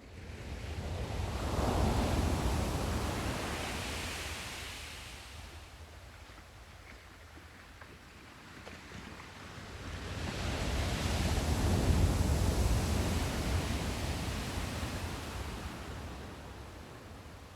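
Ocean waves washing ashore: two swells of surf, one peaking about two seconds in and the next around twelve seconds, each building and then slowly fading.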